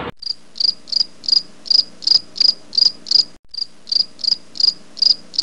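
Cricket chirping sound effect: evenly spaced short high chirps, a little under three a second, with a brief break about three and a half seconds in. It is the usual comic cue for an awkward silence.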